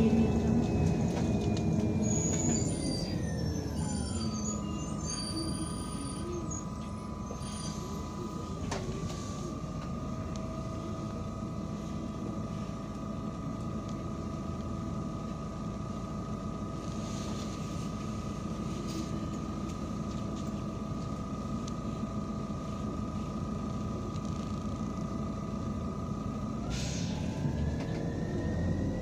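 Irisbus Citelis 12M city bus heard from inside, with its Iveco Cursor 8 diesel engine and Voith Diwa automatic transmission. The drivetrain whine falls in pitch as the bus slows to a stop, then the engine idles under a steady whine. Near the end a short air hiss comes before the whine starts rising again as the bus pulls away.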